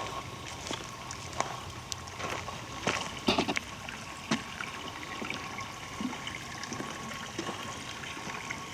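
A small stream trickling, with irregular clicks and knocks over it.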